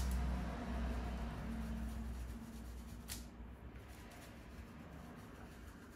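Quiet rubbing and handling of small parts, as when the old thermal paste is wiped off a laptop processor, with one sharp click about three seconds in.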